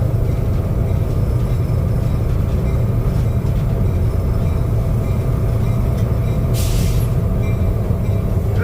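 Fairbanks-Morse H-12-44 switcher's opposed-piston two-stroke diesel running with a steady low drone. About two-thirds of the way in there is a short hiss of air, typical of the air brakes.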